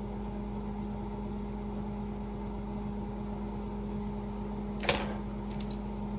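Steady hum of a small electric motor with a low drone, and one sharp click about five seconds in.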